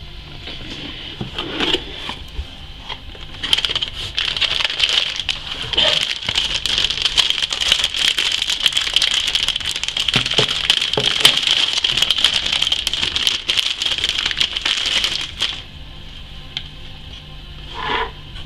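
Metallized anti-static bag crinkling and crackling as a motherboard is slid out of it, a dense run lasting about twelve seconds. A few light knocks come first, in the opening seconds.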